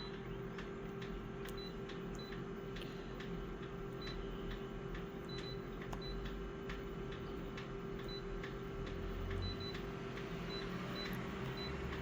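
A machine's steady hum with many light ticks scattered through it and faint short high beeps.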